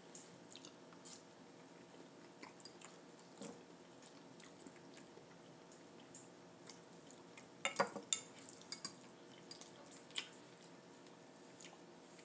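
Quiet eating sounds: chewing, with scattered small clicks of cutlery and dishes over a faint steady hum. A louder cluster of clinks comes about eight seconds in.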